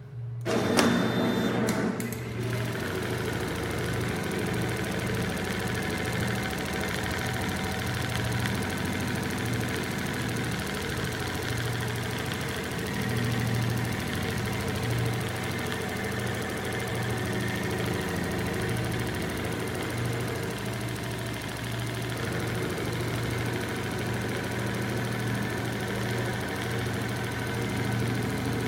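Zoje computerised large-area pattern sewing machine running. A louder start with a few clicks in the first two seconds, then a steady mechanical hum as it stitches.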